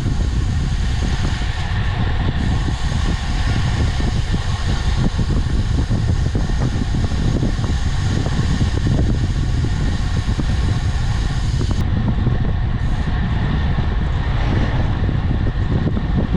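Wind buffeting the microphone of a camera riding along on a road bike: a loud, steady, gusty rumble mixed with tyre and road noise.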